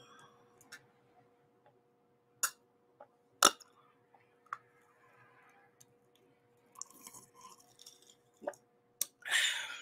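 A person drinking soda from a glass with ice: quiet swallows with a few sharp clicks, the loudest about three and a half seconds in, and a short breathy rush of noise near the end.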